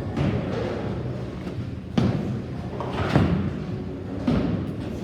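Bowling alley din with heavy thuds and knocks of bowling balls and pins: a sharp thud about two seconds in, then more knocks a second and two seconds later, echoing in a large hall.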